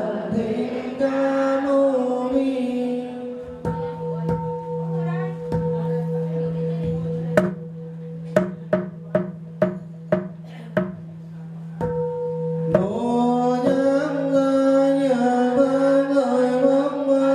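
Group Buddhist sutra chanting in Vietnamese. It breaks off for a steady ringing tone of several seconds, set off by a sharp strike, with a quick run of about nine sharp percussion strikes in the middle. Another strike follows, and then the chanting resumes.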